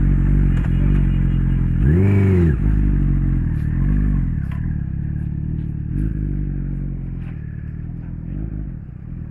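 Honda CBR Fireblade's inline-four engine running at a standstill, with one sharp throttle blip about two seconds in and several shorter blips after it. In the second half it grows gradually fainter as the bike pulls away.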